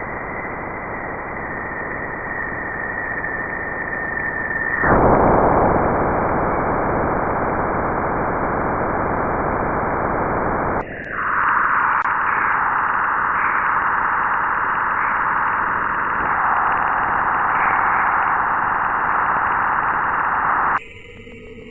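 Sonified spacecraft radio and plasma-wave recordings of a planet's surroundings, heard as static-like hiss in three successive segments: first a hiss with a steady high whistle, then from about five seconds a louder, even hiss, then from about eleven seconds a higher, narrower hiss that opens with a short falling sweep. A different, tonal sound starts near the end.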